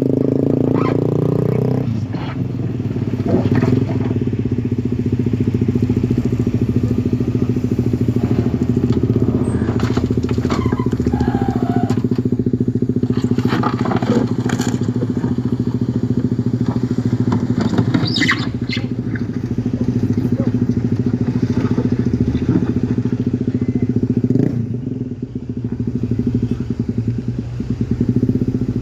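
An engine idling steadily close by, after its speed drops over the first couple of seconds, with scattered light knocks and clicks over it.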